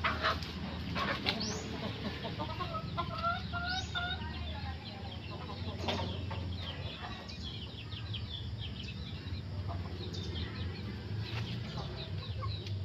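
Chickens clucking nearby, with short calls and chirps scattered throughout and a quick series of repeated notes a few seconds in, over a steady low hum.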